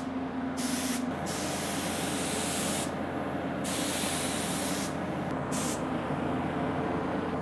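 Gravity-feed compressed-air spray gun spraying a finish coat onto a wooden recurve bow, hissing in several bursts with short breaks as the trigger is pulled and released. A steady exhaust-fan hum runs underneath.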